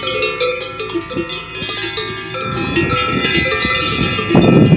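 Large alpine cowbells on a grazing herd of cattle clanging and ringing, many bells at once, with irregular overlapping strikes and long ringing tones. A louder rushing noise joins near the end.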